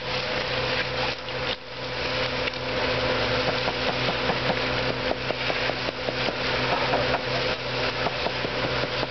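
Engine of concrete-pouring machinery running steadily, with a rushing noise over it and a run of small clicks and rattles from about three seconds in.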